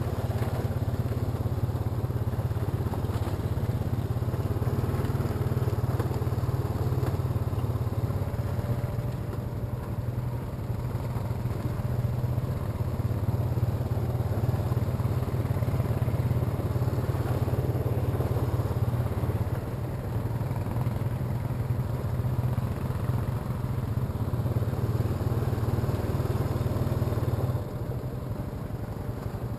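ATV engine running steadily under way, its note dropping off briefly a few times as the throttle eases, most clearly near the end.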